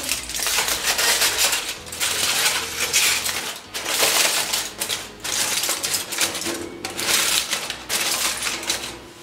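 Aluminium foil crinkling and rustling in repeated bursts as it is pressed over the rim of a cooking pot to seal it.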